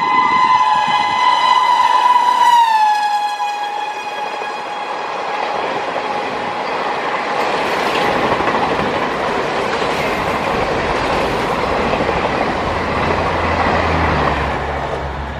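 Shrill horn of an ABB WAP5 electric locomotive passing at about 130 km/h: a steady tone that drops in pitch about two and a half seconds in as the locomotive goes by, then fades. After that the coaches run past at speed, a loud steady noise of wheels on the rails.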